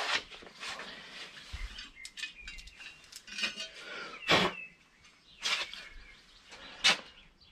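Sharp metallic clinks and clatter from a steel strut mounting plate and hand tools being picked up and knocked together. There are several strikes with a short ring, the loudest about four seconds in and again near the end.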